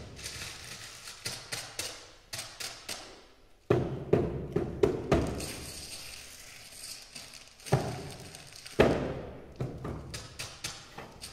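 A percussion ensemble playing sheets of paper as instruments: sharp, separate paper strikes in irregular clusters, each ringing briefly in the hall, with the loudest hits about four and nine seconds in.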